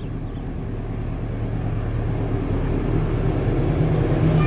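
Approaching CC 201 diesel-electric locomotive, its engine a steady low hum that grows steadily louder as the train nears.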